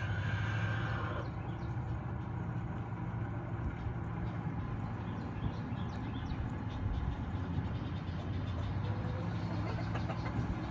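Steady low engine hum, like a motor vehicle idling, with faint small clicks over it.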